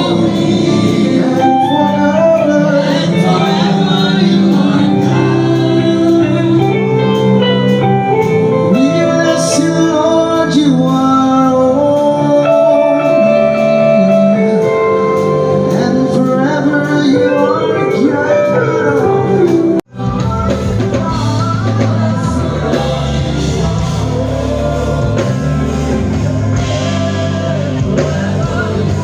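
Church choir singing with instrumental backing at a sound check. About two-thirds of the way through, the sound cuts out for an instant and carries on with a heavier bass line under the voices.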